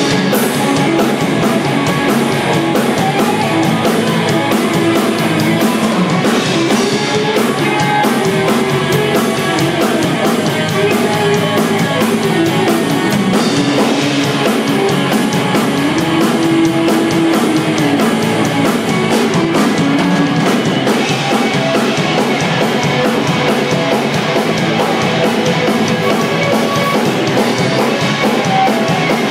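A rock band playing live: electric guitars and a drum kit going together, loud and steady.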